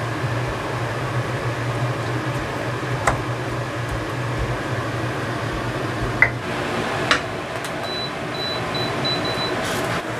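Steady mechanical hum, like a fan, with a few sharp knocks of a stone pestle against a stone mortar (cobek) as sambal is pressed over luffa pieces. A faint run of short, high beeps near the end.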